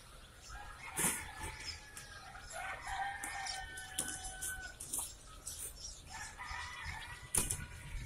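Many day-old chicks peeping together, with sharp knocks of plastic crates and baskets being handled, the loudest about a second in and again near the end.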